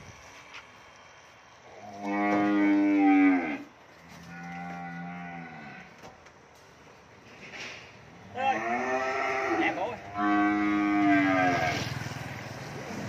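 Cattle mooing: four drawn-out moos spread across a few seconds, the second one quieter than the others.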